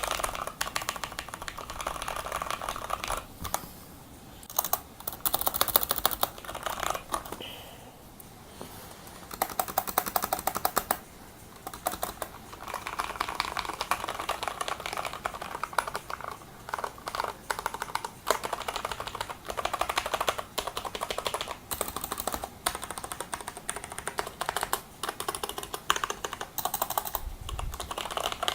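Fast typing on a Qisan Magicforce 68 mechanical keyboard with Cherry MX Brown switches and PBT keycaps: dense runs of key clicks, broken by a few short pauses.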